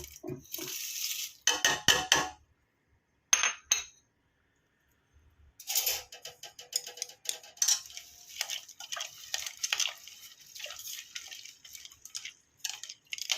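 Cooking pot and kitchen utensils clinking and knocking, with some rustling as the herbs are handled, in short runs of clatter. There is a break of about a second and a half near the middle, then busier clinking.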